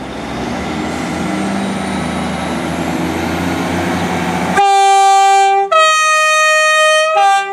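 Class 158 diesel multiple unit pulling away with its diesel engines rising in revs, then sounding its two-note horn about four and a half seconds in: a higher note, a longer lower note, and the higher note again, a high-low-high 'three-tone' that is really loud.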